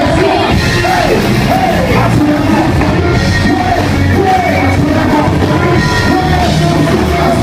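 Loud live concert music: a vocalist yelling and singing over a heavy bass-driven backing track.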